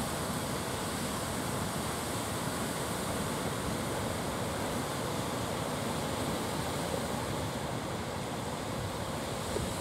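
Rough sea surf washing and breaking steadily, with some wind on the microphone.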